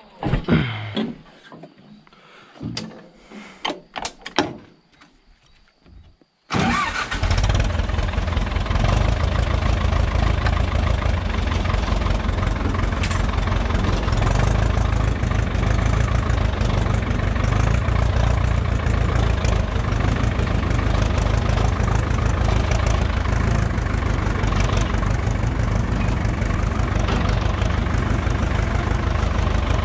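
Ursus C-360 tractor's three-cylinder diesel engine. After a few scattered knocks and clatters, the engine comes in abruptly about six seconds in and then runs steadily and loudly.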